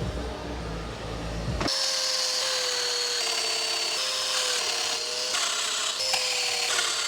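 A handheld power tool working wood: a low rumble, then, about one and a half seconds in, a motor whine that holds steady over a hiss, its pitch dipping slightly a few times as it loads.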